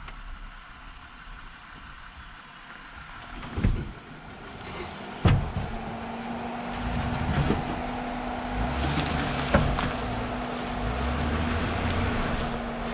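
Jeep's engine running as it crawls forward over rocky trail ground, with a few sharp knocks. The loudest knock comes about five seconds in, after which a steady drone sets in.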